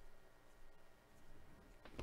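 Near silence, with faint handling of a stack of trading cards and a single faint tick near the end.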